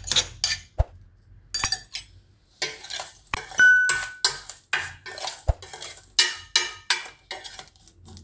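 Steel spoon scraping and clinking against a steel mortar and a stainless steel mixing bowl as garlic-chilli paste is scraped out and stirred into chopped tomatoes. A quick run of scrapes and taps, with one strike about halfway through leaving a brief metallic ring.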